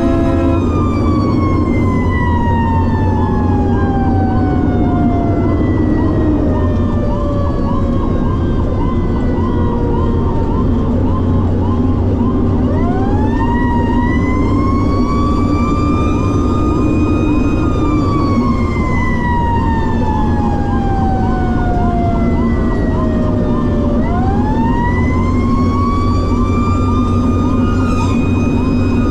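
Fire engine siren on the run: one tone winds slowly down for about twelve seconds, then rises and falls, and rises again near the end. A faster, quickly repeating warbling siren tone runs beneath it, with the truck's engine rumbling steadily underneath.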